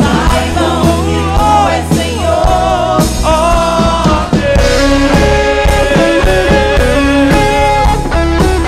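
Christian worship rock song played by a full band: a voice sings with wavering, held notes over guitar and bass for the first half, then an instrumental part follows with a long held note over electric guitar.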